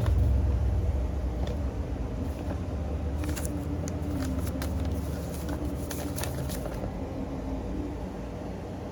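A low rumble that slowly fades away, with scattered light clicks and rustles in the middle, like fireworks boxes and packaging being handled.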